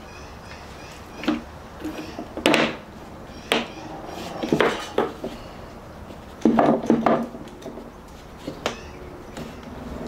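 Plastic louvred vent being handled, set down and pressed onto a sealant-bedded opening in a trailer door: a scattering of light knocks and clatters, the loudest pair about six and a half to seven seconds in.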